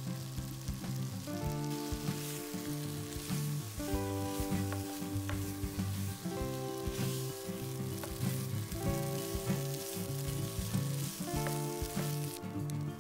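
Pork strips and onion frying in a nonstick pan with flour and tomato paste: a steady sizzle, with a spatula scraping as the meat is stirred. Background music with sustained chords plays over it.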